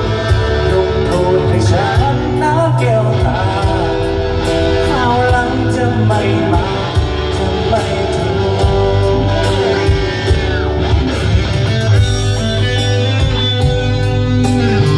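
Rock band music with electric guitar, bass and drums keeping a steady beat, and a lead melody line that bends and slides in pitch over it.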